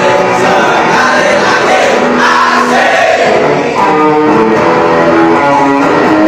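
Loud rock music: an electric guitar played through an amplifier, with singing over it.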